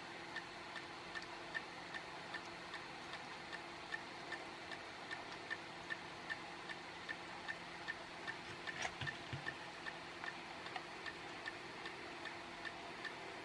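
Steady, faint ticking of a clock, about two and a half ticks a second, with one sharper light click about nine seconds in.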